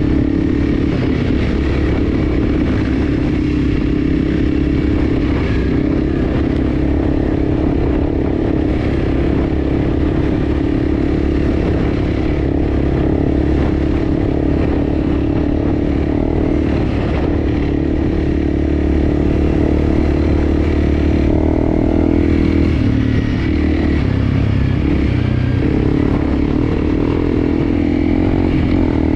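Enduro motorcycle engine running steadily under way, with a shift in engine pitch a little past two-thirds of the way through.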